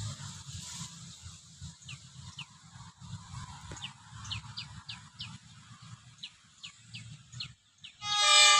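A bird calls again and again in short, sharp downward chirps over a low rumble. About eight seconds in, a train horn sounds one long, loud blast with many overtones.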